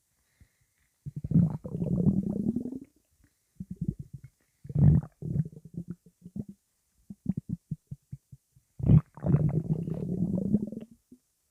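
Human stomach rumbling: long gurgling bouts about a second in, around five seconds and around nine seconds, with runs of short rapid pops between them.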